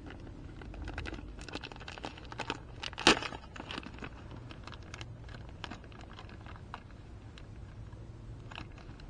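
Off-camera handling noise: crinkling and rustling with scattered light clicks, and one sharp snap about three seconds in, as parts and packaging are handled while the cylinder gasket is readied.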